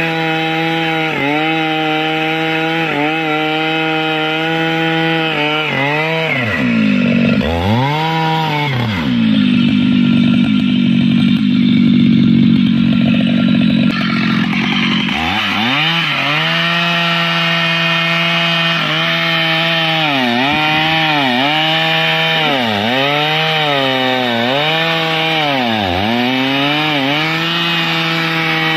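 Stihl MS 881 two-stroke chainsaw cutting through mahogany wood at high revs. Around the middle its pitch drops and bogs under the load of the cut. Later the revs dip and recover about once a second.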